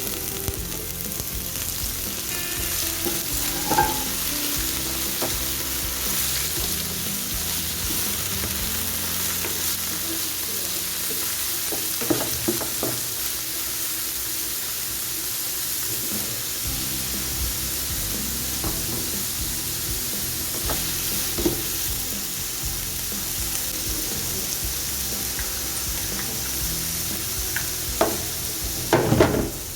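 Food frying in hot oil in a pan: a steady sizzle, with a few knocks and scrapes of a utensil against the pan, the loudest near the end.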